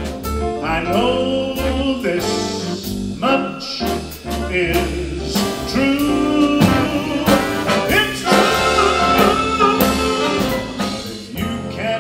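Live big band playing, with a male vocalist singing over the horns and rhythm section.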